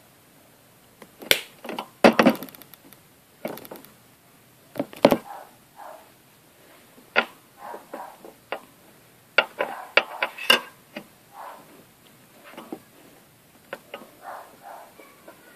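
Irregular clicks, taps and light scuffs of hands handling a plastic paint bottle and a small plastic figure piece on a paper-covered tabletop, with a quick rattling run of clicks about two seconds in and a few sharper knocks about ten seconds in.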